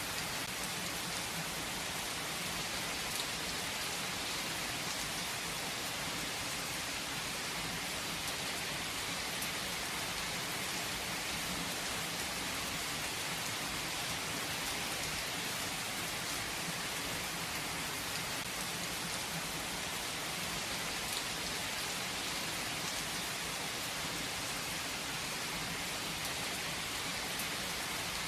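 Steady rain falling on a surface, a dense even hiss with faint scattered drop ticks.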